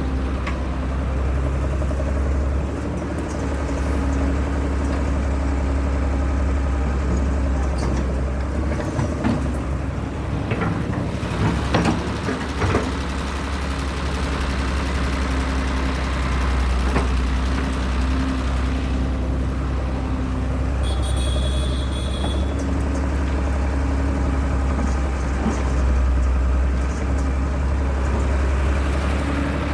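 Heavy excavator's diesel engine running steadily with a deep rumble, with a cluster of sharp metallic knocks and clanks partway through. A short run of high beeps sounds briefly about two-thirds of the way in.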